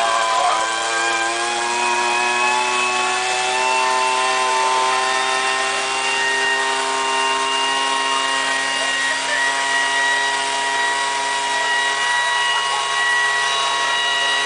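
Handheld leaf blower running steadily at a nearly constant pitch, with a slight shift in pitch a few seconds in.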